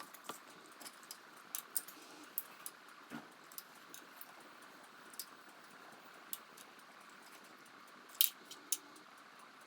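Light clicks and ticks of small parts being handled as capacitor leads and wires are fitted to a small speaker's terminals, with a sharper pair of clicks about eight seconds in, over a faint steady hiss.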